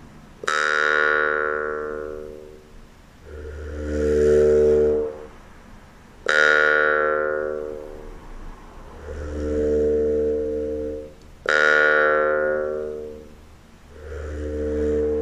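Slow meditation music: sharply struck, ringing notes that fade over a second or two, three times, alternating with soft swelling and fading tones in between.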